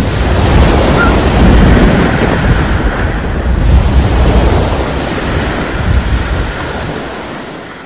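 Stormy sea: rushing waves and wind, fading out over the last couple of seconds.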